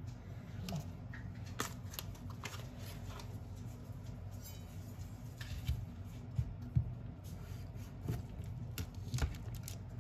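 A plastic-wrapped block of cheese and a chef's knife being handled on a wooden cutting board: scattered light clicks and taps, over a steady low hum.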